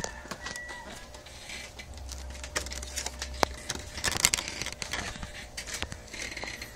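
Scattered light clicks, taps and scrapes of handling, with the camera moving and hands working among the scooter's headlight wiring, over a faint steady hum.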